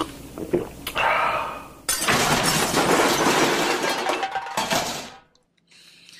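A loud crash of falling, shattering glass lasting about three seconds, starting about two seconds in, after a few clinks and knocks.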